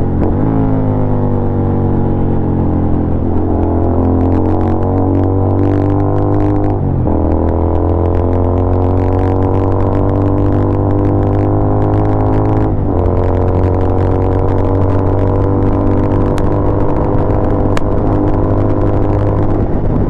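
Royal Enfield Continental GT 650's parallel-twin engine running through Barrel Exhaust Atoms pipes, crackling and popping. The engine note slides in pitch and breaks sharply twice, about 7 and 13 seconds in, with scattered sharp cracks throughout and a few louder single pops near the end.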